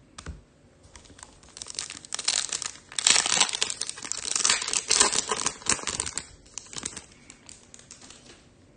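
Foil wrapper of a Topps Chrome trading-card pack being torn open and crinkled: a dense crackling that builds about a second and a half in, is loudest in the middle few seconds and dies away near the end.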